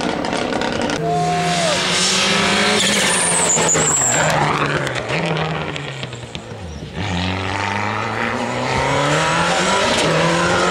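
Ford Escort rally car's engine revving hard, its pitch climbing and dropping again and again with gear changes. It eases off about six seconds in, then picks up strongly again.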